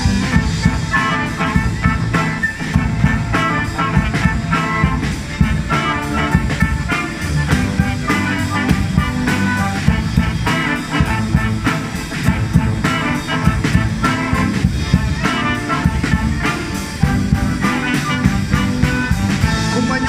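A street band of flutes, saxophones, trumpets, sousaphone, accordion and acoustic guitar playing a lively tune together, with a steady beat.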